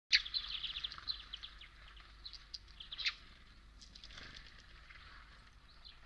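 Small birds chirping at a seed feeder: a quick run of high chirps in the first second, then scattered single calls, with a brief flutter of wings about four seconds in.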